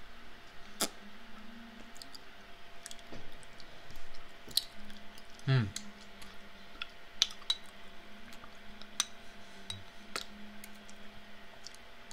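Metal spoon clicking against a bowl as ice cream is scooped and eaten, with soft mouth sounds between the clicks. About five and a half seconds in, a brief vocal sound falls in pitch. This is the loudest moment.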